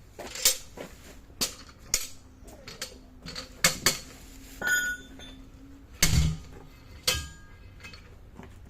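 Metal tools and parts being handled in a truck tyre shop: a series of separate sharp metallic clanks and knocks, one ringing briefly, with a heavier thump about six seconds in.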